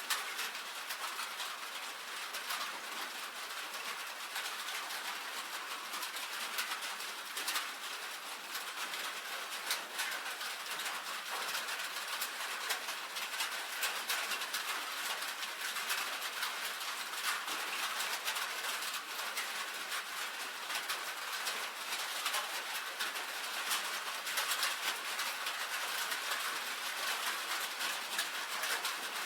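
Steady rain drumming on a tin roof: a dense, even patter of drops striking the metal sheeting, with many sharp individual ticks.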